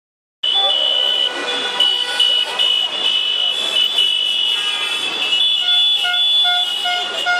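After a brief silence, sound cuts in suddenly: a loud din of several vehicle horns sounding at once, with steady high-pitched blaring tones. From about two-thirds through, one horn beeps over and over, a little more than twice a second.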